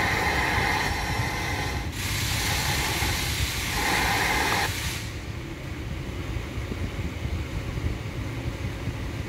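Holden Commodore factory car radio playing through the cabin speakers while being tuned between FM stations, with loud static hiss from about two seconds in that cuts off at about five seconds. After that the radio goes quiet and only a low steady rumble remains.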